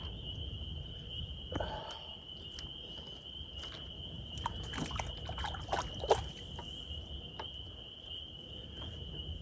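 Steady high trill of insects, with scattered small clicks, knocks and water drips while a bowfishing arrow and its line are hauled back to the kayak.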